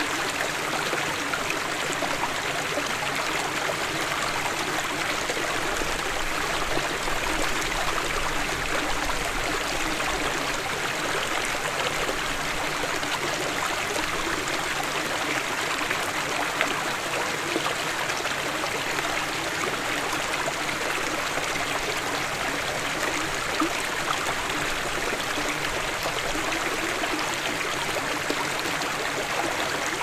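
Small mountain stream flowing and splashing down a series of low rocky steps: a steady, even rush of running water.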